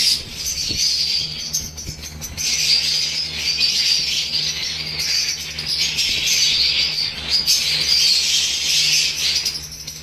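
Steady high-pitched chatter of caged parrots, with wood shavings and a plastic bag rustling and crackling a few times as they are handled.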